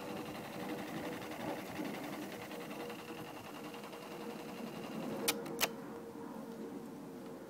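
Grundig C420 cassette recorder winding its tape at fast-forward: a steady mechanical whir from the tape transport with a constant thin hum, and two light clicks about five seconds in.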